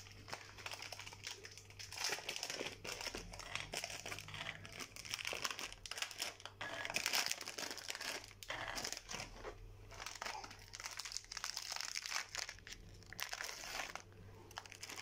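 Plastic biscuit wrappers crinkling and tearing in irregular bursts as the packets are ripped open and handled.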